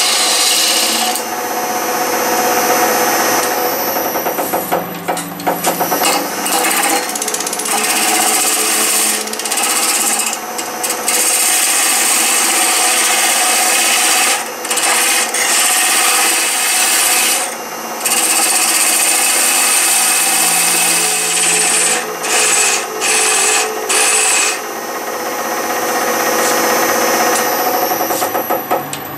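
Wood lathe running while a hand-held gouge cuts a spinning ash blank: a steady hiss of cutting over the lathe's hum, broken by several short gaps where the tool comes off the wood.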